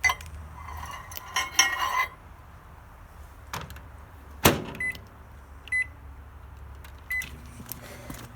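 Microwave oven door shut with a sharp click, then three short keypad beeps as the time is entered, and the oven's low hum starting up near the end as it begins to run. Some handling clatter comes first.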